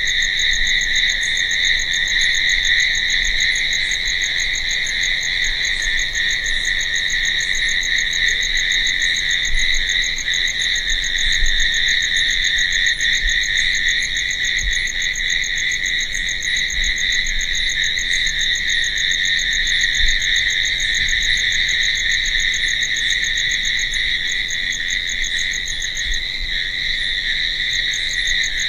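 Night chorus of crickets: a dense, continuous trilling with a higher, rapidly pulsing chirp and small repeated chirps layered over it.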